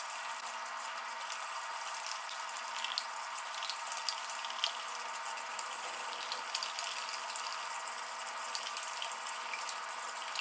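Wire whisk beating a liquid egg, creamer and cinnamon mixture in a large mixing bowl: steady sloshing and swishing with faint irregular ticks of the whisk against the bowl.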